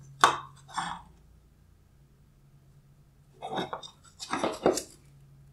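Headlight projector lens assembly of black plastic and glass knocking and scraping on a wooden workbench as it is handled. Two sharp knocks come in the first second, then a cluster of clattering knocks a little past the middle.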